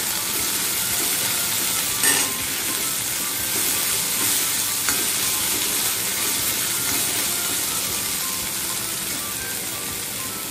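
Chopped vegetables with peanuts and tomato sizzling in hot oil in a kadhai while a steel spoon stirs them. There is a steady hiss, with a louder knock of the spoon against the pan about two seconds in and a lighter one about five seconds in.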